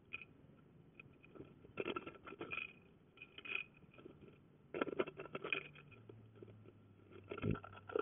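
A house wren's claws and the twigs it carries scraping and knocking on the wooden floor and walls of a nest box as it builds its stick nest, in four short bursts of clatter.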